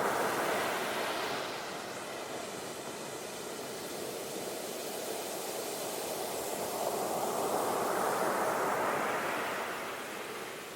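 Ocean waves washing ashore: a steady surf hiss that eases after the first second or so, then swells again to a peak about eight seconds in before ebbing.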